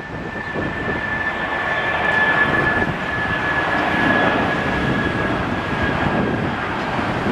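Airbus A319 jet engines at takeoff thrust during the takeoff roll: a steady rush with a high whine that drops slightly in pitch as the airliner passes.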